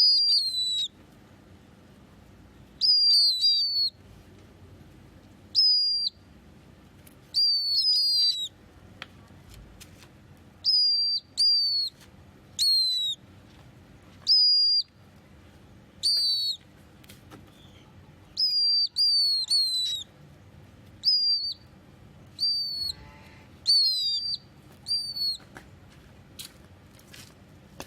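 A pet bird calling: short, high whistled notes that dip slightly in pitch, given singly or in quick pairs and triples every second or two.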